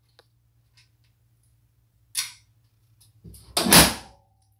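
Steel body of a 1972 Volkswagen Super Beetle being handled and shut: a sharp knock about two seconds in, then a louder, heavier thud near the end.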